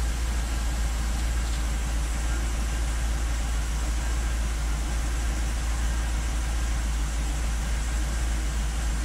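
Holden VE SS V's V8 engine idling steadily, a low even rumble with no change in speed.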